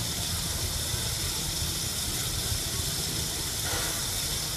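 Steam locomotive standing with steam hissing steadily and a low rumble underneath.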